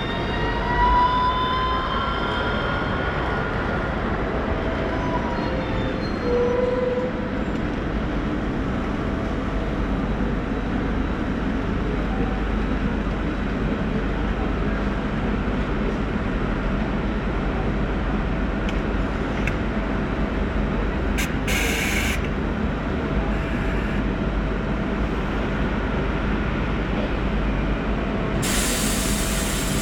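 Bombardier Guided Light Transit trolleybus running close by, with a steady hum and a rising electric drive whine in the first few seconds. Two short hisses of released compressed air come about two-thirds of the way through and again near the end.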